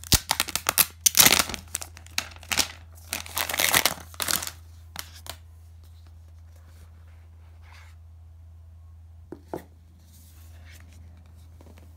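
Clear plastic shrink wrap being torn and peeled off a smartphone box, crackling and crinkling loudly for about five seconds. A couple of light knocks from the cardboard box follow about nine and a half seconds in.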